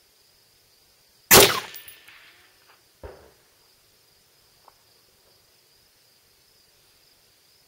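A single rifle shot from a Bushmaster Varminter AR-15 firing 5.56 mm XM193 55-grain ammunition, a loud sharp crack about a second in that rings out over the next second. A much fainter sharp report follows about a second and a half later, and a light click near the middle.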